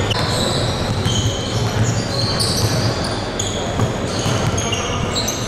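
Basketball shoes squeaking on the hardwood court: many short, high squeaks in quick, irregular succession over the steady hum of the gym.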